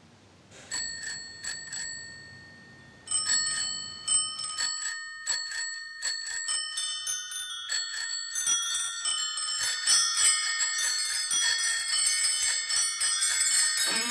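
Chrome bicycle bell rung with its steel thumb lever: four quick rings about a second in, then fast repeated ringing from about three seconds that grows denser, with several bell tones overlapping toward the end.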